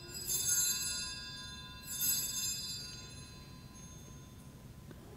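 Altar bells rung at the elevation of the chalice during the consecration. There are two strokes about two seconds apart, each ringing on and slowly fading.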